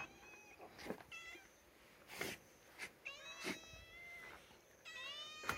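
Cats meowing repeatedly, about four high-pitched meows, one drawn out and the last rising in pitch. A few short sharp taps come between the meows.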